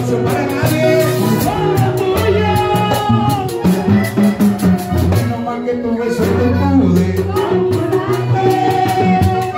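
Live Latin dance music: singing over a bass line, with a metal scraper (güira) scratching out a steady beat.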